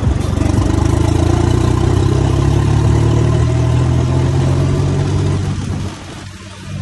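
John Deere farm tractor's diesel engine running steadily as the tractor drives along, its level dipping briefly near the end.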